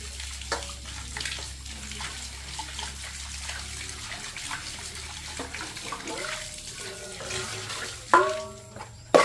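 Water running steadily, as from a tap or hose, with a low hum that stops about four seconds in. A few short cries or voices come near the end, the loudest about eight seconds in.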